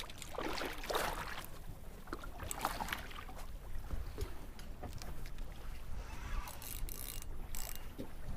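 Small fishing boat at sea: a steady low rumble with water sloshing and splashing, and scattered short knocks and clatters.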